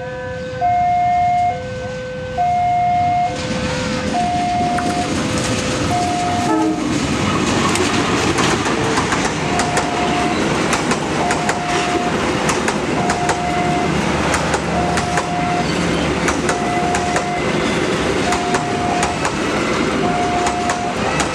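Passenger train coming through the station, its wheels clattering over the rail joints and growing louder from about three seconds in. Over it, a repeating electronic warning signal first alternates between two tones, then changes to single beeps spaced a little under two seconds apart.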